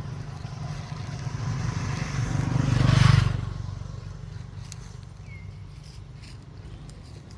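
A motor vehicle passing by, rising to its loudest about three seconds in and then fading, over a steady low rumble.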